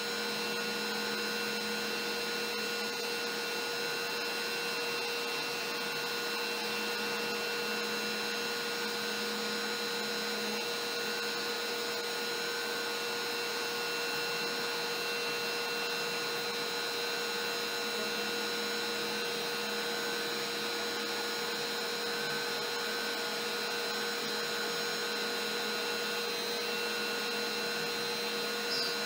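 Trim router on a LowRider v3 CNC running steadily at its lowest speed dial setting, a single-flute upcut bit cutting MDF, together with the dust-collection vacuum drawing through the hose. A steady whine with several fixed pitches over an even rushing noise.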